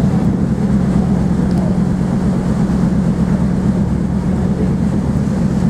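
Steady low rumble of the car ferry Pride of Canterbury under way, its engines and hull droning evenly.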